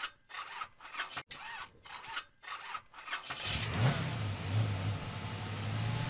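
A car engine starting: about three seconds of rhythmic cranking pulses, then it catches and settles into a steady running note, with a quick rev about a second later.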